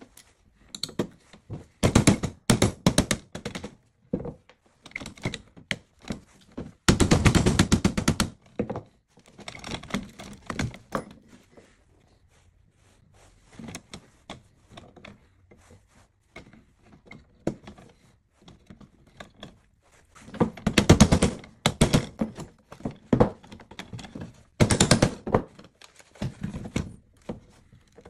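Hammer striking a steel punch against the roll pins that hold the end cap on a DeWalt DCN681 nailer, in several runs of quick sharp blows. Lighter clicks and clatter of parts being handled fall between the runs.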